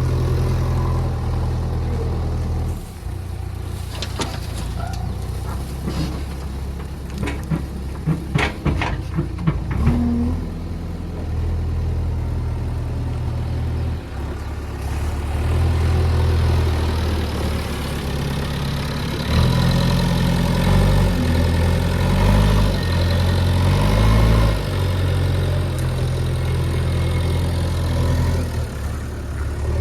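Heavy diesel engine running, with a string of knocks and clicks between about four and ten seconds in. The engine revs up and down several times past the middle.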